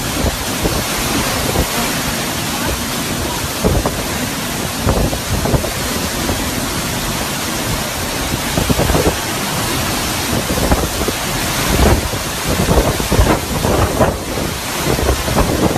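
Extreme hurricane wind gusting with heavy rain: a dense, steady rush of noise broken by repeated low buffeting of wind on the microphone, the gusts coming harder and more often in the last few seconds.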